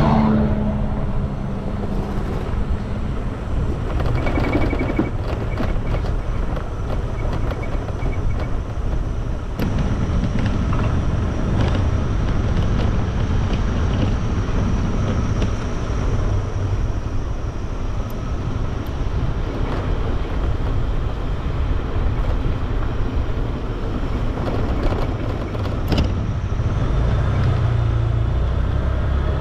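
Motor scooter running along a road: a steady low rumble, with a couple of faint ticks.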